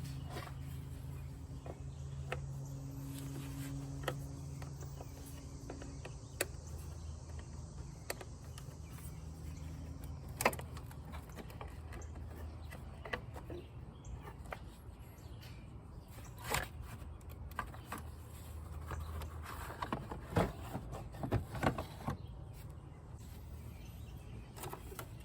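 Scattered clicks and knocks of hand tools and metal parts being handled while an old car battery is disconnected and lifted out, with a burst of louder knocks near the end, over a low steady hum.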